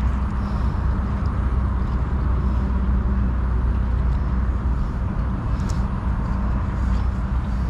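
A steady low mechanical rumble with a droning hum, like engines running nearby, with a few faint clicks over it.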